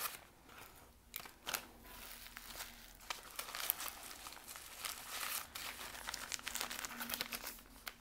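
Small plastic zip bags crinkling and rustling as they are handled and gathered up, an irregular run of crackles.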